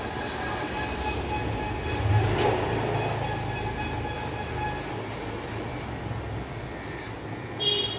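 Electric hair clipper buzzing steadily as it cuts short hair up the side of the head around the ear, a little louder about two seconds in. A brief high-pitched chirp sounds near the end.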